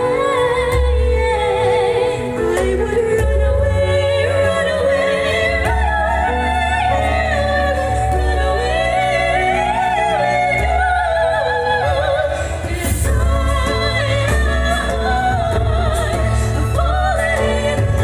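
Two women singing a duet into handheld microphones, amplified through a PA over a backing track with a strong, steady bass line.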